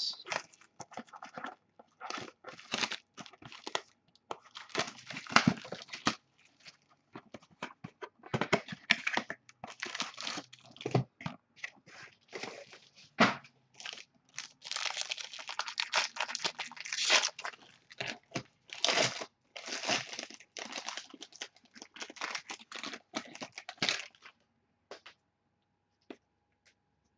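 Crinkling and tearing of a trading-card pack's shiny wrapper as it is opened by hand, along with rustling as the pack and its cardboard box are handled. The sound comes in irregular bursts of crackle and stops a few seconds before the end.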